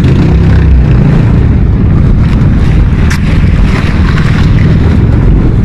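Boat engine running steadily, with wind buffeting the microphone.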